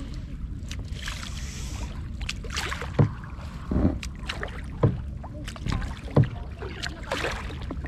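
Kayak paddling: the paddle blades dip and splash in the water in short strokes about once a second, over a steady low rumble.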